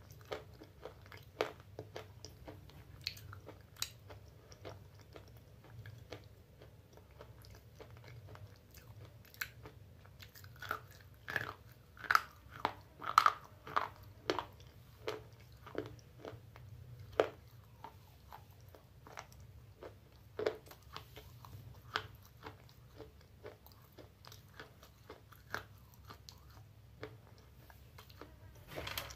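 Chewing and crunching a Bablu-brand slate pencil in the mouth: sharp, irregular crunches, coming thicker and louder about ten to fifteen seconds in.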